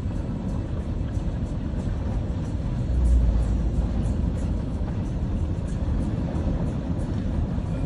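Car driving along a flooded road: a steady low rumble that swells louder about three seconds in.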